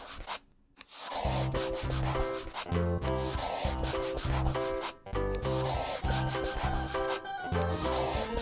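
Scribbling sound of coloring in, a repeated scratchy rubbing like a crayon on paper, over background music with a pulsing bass line. Both break off briefly about half a second in.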